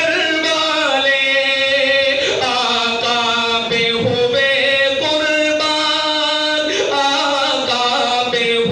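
A man's solo melodic chanted recitation, unaccompanied, in long held notes that glide between pitches.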